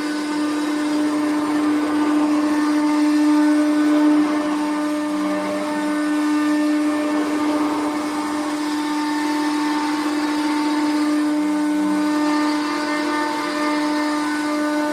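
CNC router spindle running at a steady high whine while it cuts through stacked layers of solid wood, the cutting noise swelling and easing as the bit moves.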